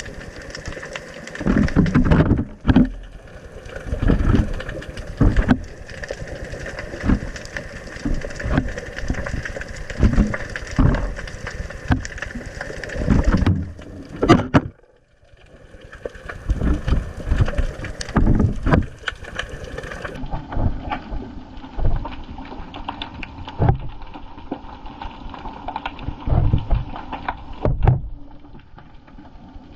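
Sea water surging and sloshing around an underwater camera, with irregular low thumps and knocks against the housing. The sound drops out briefly about halfway and then continues, duller.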